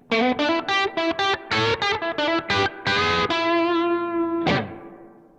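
Electric guitar, a modified Fazley FTL200 Telecaster-style guitar on its bridge pickup, played through an amp: a quick run of single picked notes, then a held note, then a chord struck about four and a half seconds in that rings out and fades.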